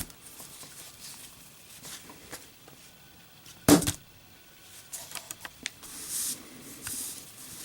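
A lit Zippo lighter dropped onto a hard surface, landing with one sharp metal clatter about three and a half seconds in. Faint handling clicks come before and after it.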